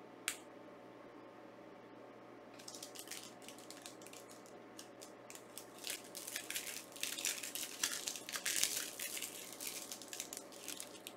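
A single click just after the start, then crinkling and rustling of packaging being handled, a dense run of small crackles that grows busier and louder in the middle and thins out near the end.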